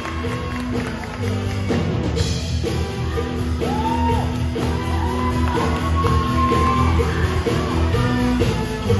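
Middle-school show choir singing over loud accompaniment with a steady bass beat, heard in a large auditorium hall.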